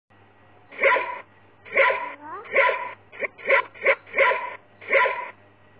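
A dog barking repeatedly, about eight sharp barks at a steady pace, with a short rising whine after the second bark.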